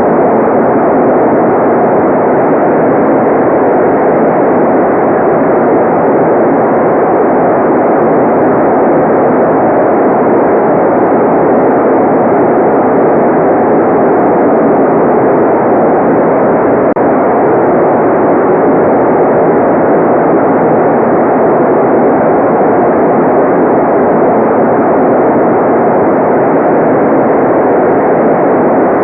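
Generated white noise: a steady, unchanging hiss with no rhythm, tones or breaks, strongest in the middle range.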